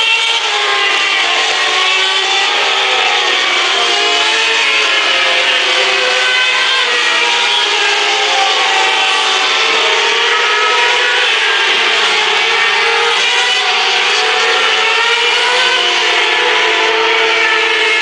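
Several 2011 Formula One cars' high-revving 2.4-litre V8 engines passing through the corners one after another, their overlapping pitches rising and falling with acceleration, braking and gear changes.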